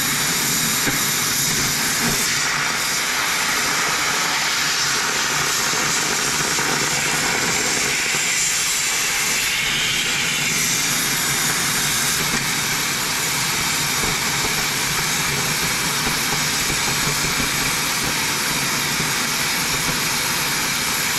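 Oxy-fuel cutting torch on a Victor DC2400 duplicator hissing steadily as its oxygen jet cuts through 4-inch-thick metal plate.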